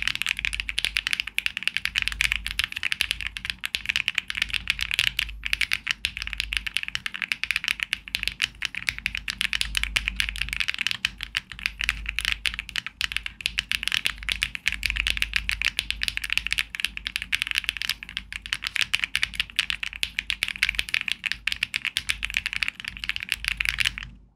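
Fast, continuous typing on a Luminkey65 mechanical keyboard with HMX Sillyworks Hayacith V2U switches and OTC Modo Light keycaps, built with a polycarbonate plate and all of its foam: a dense, even run of key clicks that fades out near the end.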